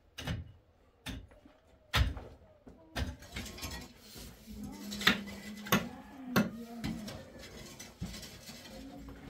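A string of separate sharp knocks and clinks of hard objects being handled, several seconds apart at first and closer together later on.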